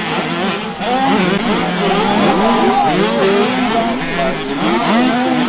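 Several small dirt-bike engines racing together, each revving up and down through its gears so that their pitches rise and fall over one another continuously.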